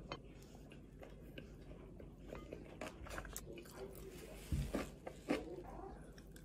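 A person eating air-fried chicken in yangnyeom sauce: faint biting and chewing, with two louder sharp bites a little past the middle.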